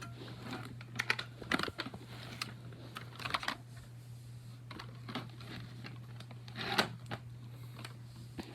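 Keys of a mechanical keyboard being pressed: scattered clicks and short runs of clacks, irregular and a second or so apart.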